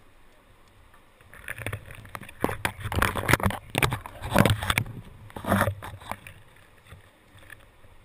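Branches and undergrowth scraping and snapping against a helmet camera as someone pushes through dense forest brush: a close cluster of short, sharp scrapes and cracks from about one to six seconds in, with quieter rustling either side.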